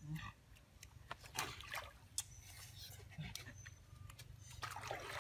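Faint splashing and trickling of stream water as hands wash something at the water's edge, with scattered small splashes and a busier patch near the end. A couple of brief low-pitched sounds come about a quarter-second in and again around three seconds in.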